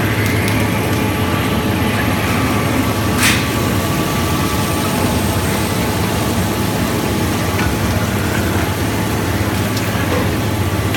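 Rubber-sheet hanging-bar cooling line running: a steady machinery din over a constant low hum. A brief sharp noise about three seconds in.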